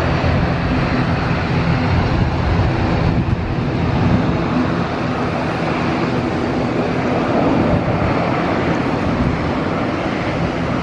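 Jet engines of a Singapore Airlines Airbus A330 landing, a steady rumble as it flies low on final approach toward the runway.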